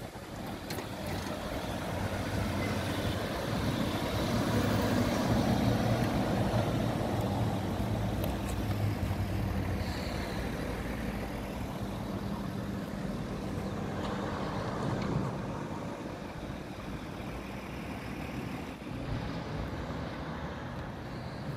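Heavy machinery engine running steadily with a low drone, a little louder about four to seven seconds in.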